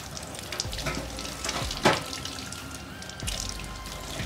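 Kitchen tap running over a fish being rinsed, the water splashing into a stainless steel sink. About two seconds in there is one louder, sharp splash or knock.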